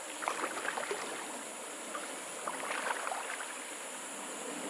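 Shallow stream water splashing around a person's legs as he wades, over the steady rush of the flowing stream. The splashes come in irregular clusters, near the start and again a little past halfway.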